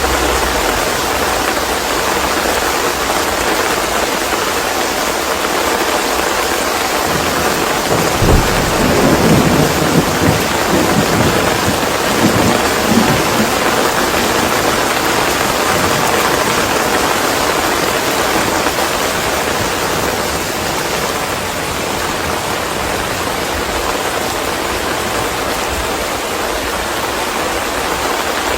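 Steady heavy rain, with a roll of thunder rumbling in about eight seconds in and lasting several seconds.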